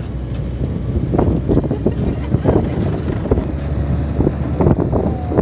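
Open-top off-road vehicle driving across sand: a steady engine rumble and wind buffeting the microphone, with frequent short knocks and rattles from the ride.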